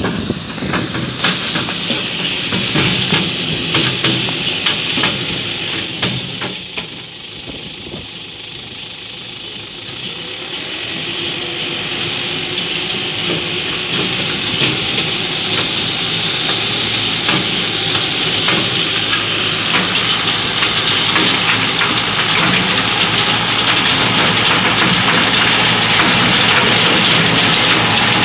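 Tractor engine running while it pulls a stone picker, with stones clattering and rattling through the machine over a steady hiss. It dips quieter for a few seconds about a quarter of the way in, then grows louder toward the end as the machine comes close.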